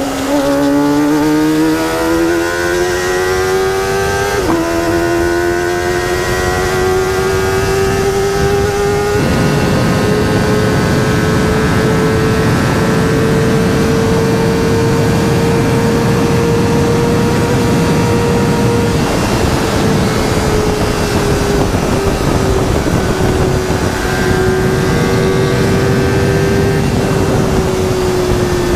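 Kawasaki ZX-25R's 250 cc inline-four, through a DX Generation Sphere aftermarket exhaust, pulling hard with the revs climbing for about nine seconds. It then holds a high, near-steady cruise as wind rush builds, and eases off a little toward the end.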